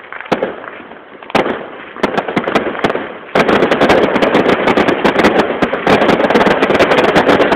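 Aerial fireworks going off: a few separate bangs in the first three seconds, then, about three and a half seconds in, a dense crackle of many rapid pops from crackling star bursts.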